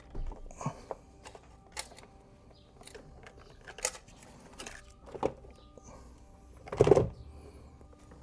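Scattered clicks and knocks of parts and tools being handled while working on a motorcycle, with one louder knock about seven seconds in.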